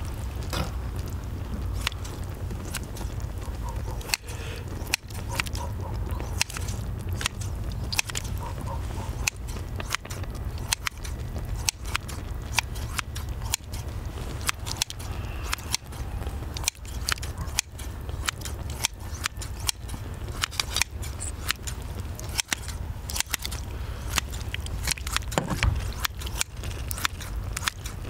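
Metal kitchen scissors and tongs snipping cooked octopus tentacles in a wide iron pan, giving many irregular sharp clicks and clinks of metal, over a steady low rumble.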